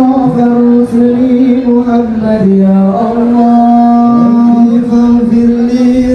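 Male voices singing an Islamic devotional chant (sholawat) in long held notes that step between pitches every second or so, loud over a sound system.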